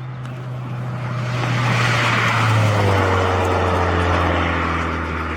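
Modified car driving past. Its engine note builds to a peak about halfway through, then drops in pitch as it goes by.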